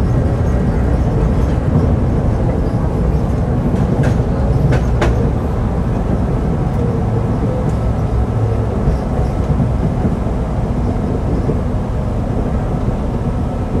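Tram rolling along a forest track with a steady low rumble of wheels on rails. A few sharp clicks come about four to five seconds in.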